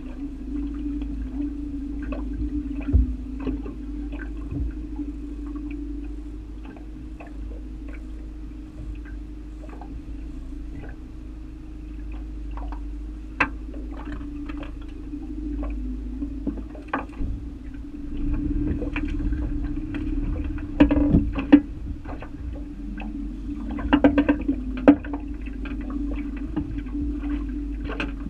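A boat motor running steadily at low speed, with scattered knocks and slaps of water against the aluminium hull that come louder in clusters about three-quarters of the way through.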